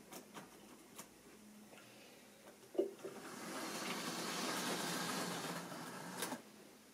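Model locomotive running along the track, its small electric motor and wheels whirring. A few light clicks and a knock come first. The whirr then swells over about three seconds and cuts off sharply near the end.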